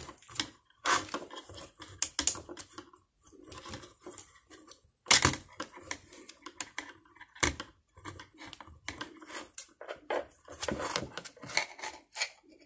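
Plastic parts and joints of a Transformers Studio Series Skipjack figure clicking and rattling as it is transformed by hand: a run of irregular light clicks with a few sharper snaps, the loudest about five seconds in and another about seven and a half seconds in.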